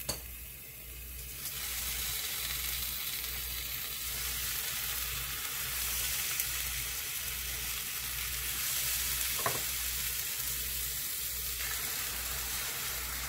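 Oil sizzling steadily in a hot rectangular egg-roll pan as thin zucchini slices are laid in beside a rolled omelette. The sizzle picks up about a second and a half in.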